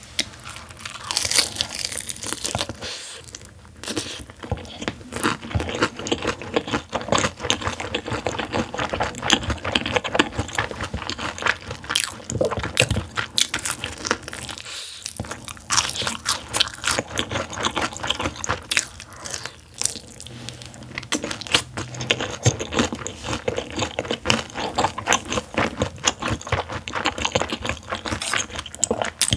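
Close-miked crunching bites and chewing of crispy fried chicken with a crisp glazed coating, sharp crackles coming thick and fast with a couple of brief pauses.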